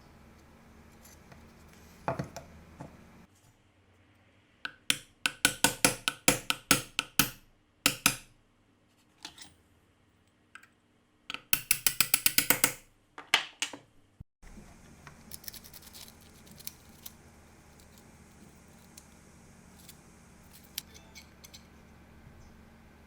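Two runs of quick, sharp strokes, about five a second, and a few single clicks in between, over a steady low hum.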